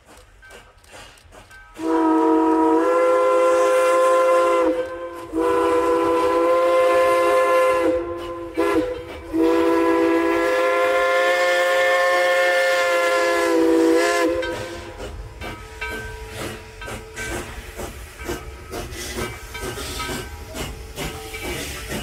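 Steam locomotive whistle blowing long blasts, several tones sounding at once, with short breaks about 5 and 8 seconds in. It stops about 14 seconds in and gives way to the rumble and clatter of the locomotive and cars rolling past.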